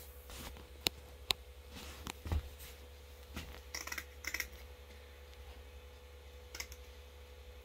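Scissors snipping: a handful of short, sharp clicks and cuts spread out over several seconds, with a quick cluster about four seconds in.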